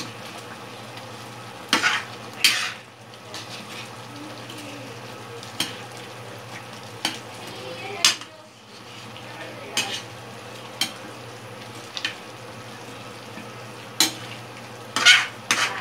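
A cooking spoon stirring chicken pieces through simmering coconut-milk curry in a metal pan, knocking and scraping against the pan every second or two over a steady sizzle. The loudest knocks come near the end.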